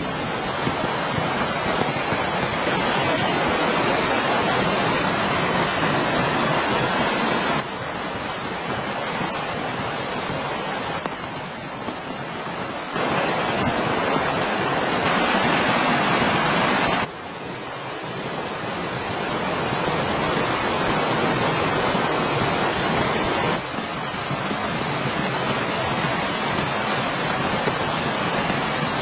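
Steady rain falling, a dense even hiss. Its loudness jumps up or down suddenly several times.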